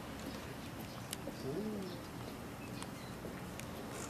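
A pigeon cooing faintly once, about a second and a half in, over quiet outdoor background with a few light clicks.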